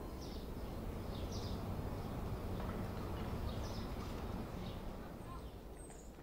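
Outdoor ambience: a steady low background rumble with short bird chirps repeated every second or so, fading out near the end.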